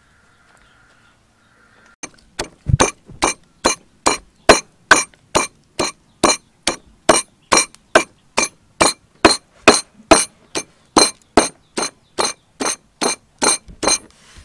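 Wooden pestle pounding garlic and red chilies in a wooden mortar: a steady run of sharp knocks, about two and a half strikes a second, each with a short ring, starting about two seconds in and stopping near the end.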